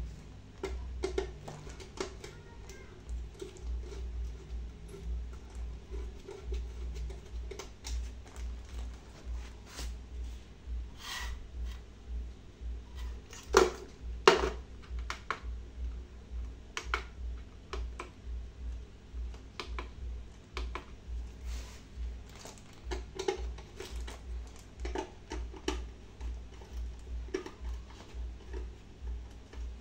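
Handling noise: scattered clicks and knocks as a plastic sound-card unit and its cables are moved about on a metal car amplifier casing, with two louder knocks close together about halfway through as the card is put on the amplifier. A low, pulsing hum runs underneath.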